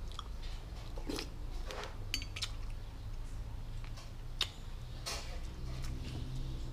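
Metal spoon clinking and scraping against a ceramic soup bowl: a handful of separate clinks, one ringing briefly about two seconds in.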